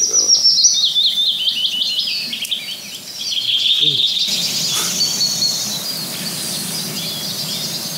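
Songbirds singing: a quick series of high chirps stepping down in pitch over the first couple of seconds, then a steadier high trill from about halfway.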